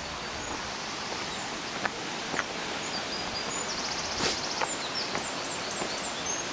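Steady rush of a stream running down to a waterfall, with small birds chirping and trilling over it and a few sharp taps from footsteps on a dirt path.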